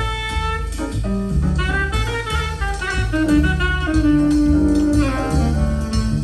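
Jazz played back through KEF LS50 Meta bookshelf speakers. It is an instrumental passage with a saxophone over drum kit and bass, and the horn holds one long note about halfway through.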